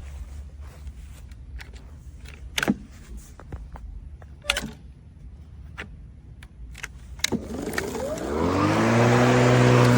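A few scattered clicks and knocks of handling, then a Greenworks 40V cordless electric motor switching on near the end. It whirs up in pitch and settles into a steady running hum.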